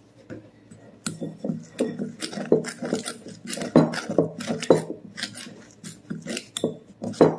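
A utensil stirring buttermilk into biscuit dough in a mixing bowl: irregular scrapes and knocks against the bowl as the dough is mixed just until blended.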